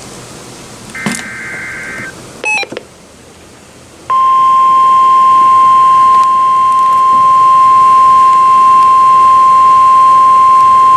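NOAA Weather Radio emergency alert signalling: a burst of SAME digital header data, a raspy two-pitch warble, runs for about a second starting a second in. At about four seconds the loud, steady 1050 Hz warning alarm tone comes on and holds.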